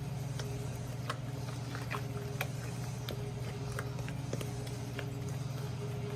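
Electric mixer running steadily in cookie batter, its beaters ticking now and then against the bowl.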